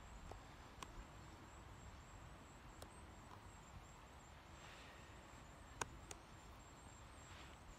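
Near silence, with faint rustling and a few light clicks as cord is pulled and wrapped around a knife by hand; the sharpest click comes a little under six seconds in.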